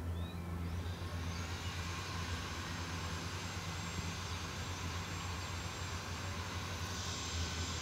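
Construction-site noise from crawler excavators working in an earth pit: a steady low diesel-engine rumble under a broad rushing noise that builds about a second in and swells near the end.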